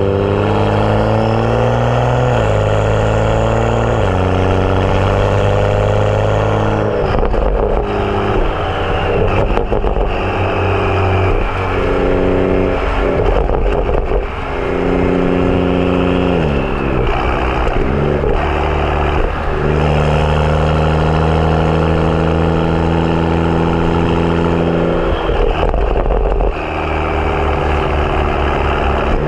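BMW F30 335i's turbocharged N55 inline-six running through a catless downpipe and M Performance exhaust while driving: the exhaust note rises and drops back several times as it pulls and shifts, with rough crackly stretches in between, then holds steady.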